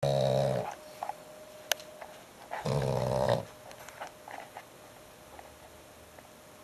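French bulldog snoring loudly: one snore ending just after the start and another about two and a half seconds in, each under a second long. A single sharp click falls between them.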